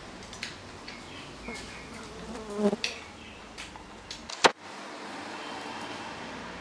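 Chopsticks clicking against a ceramic rice bowl during a meal: a few light clicks and one sharp clink about four and a half seconds in, over faint steady background noise.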